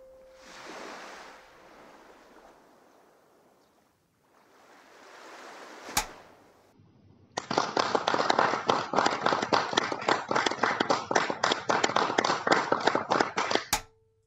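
An audience applauding, dense and loud for about six seconds and cut off abruptly. Before it come two soft swells of rushing noise and a single sharp click.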